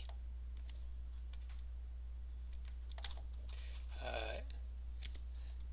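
Light, irregular clicks and taps of a stylus on a tablet screen as handwriting is written, over a low steady hum. A short murmur of voice comes about four seconds in.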